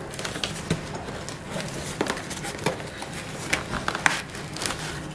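Packaging and small glass jars being handled during an unboxing: irregular taps, clicks and crinkling, with a few sharper knocks.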